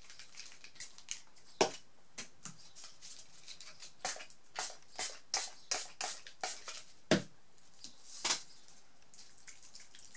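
Hand-pump spray bottle spritzing rubbing alcohol onto ink-painted photo paper: a dozen or so short, sharp spritzes, coming quickest, two or three a second, in the middle.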